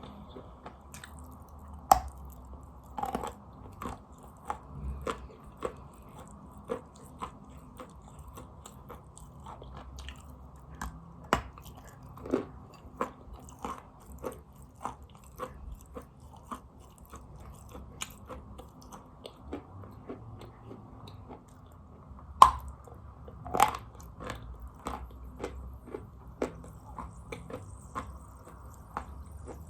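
A person biting and chewing chalk close to the microphone: irregular crisp crunches and crackles throughout, with a handful of much louder, sharp bites standing out among them.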